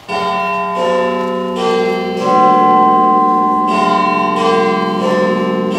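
Deep tower-style bell chimes, struck in two four-note phrases, each note ringing on under the next.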